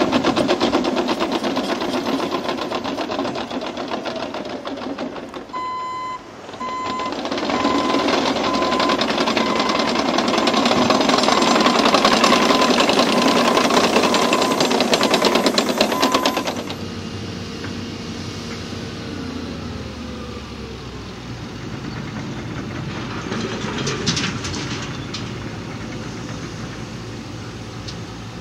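Caterpillar D6N LGP crawler dozer working: its diesel engine runs under a rapid clatter from the steel tracks. A reversing alarm beeps about twice a second from roughly a fifth of the way in. About halfway through, the clatter and beeping stop abruptly, leaving a quieter, steady engine sound.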